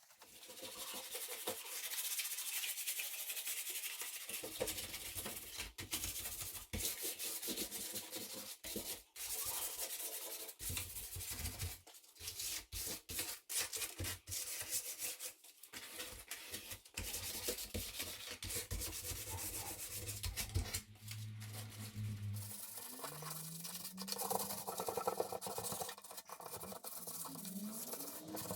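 Sanding wood: a continuous rubbing hiss broken by many short pauses.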